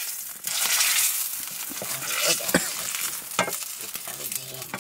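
Hot oil sizzling in an iron wok as bits of spice fry in it, with an iron ladle stirring and clinking against the pan. The sizzle swells loud about half a second in, then settles to a steady hiss with a few clinks of the ladle.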